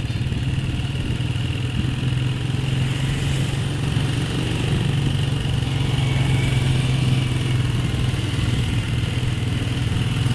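Motorcycle engine running steadily at an even cruising speed, with the hum of street traffic around it.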